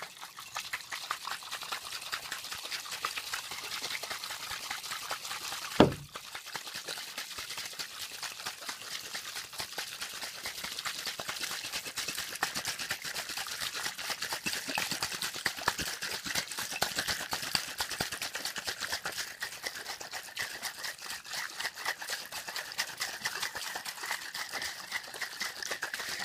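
A hand-held container being shaken continuously, its contents making a fast, dense patter, with one sharp knock about six seconds in.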